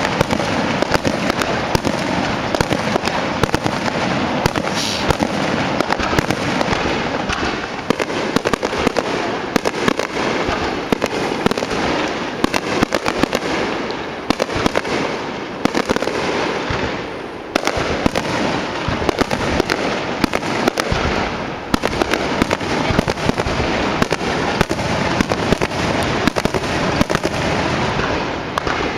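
Fireworks display: a dense, continuous barrage of bangs and crackling bursts, many reports a second with hardly a pause, dipping briefly a little past halfway.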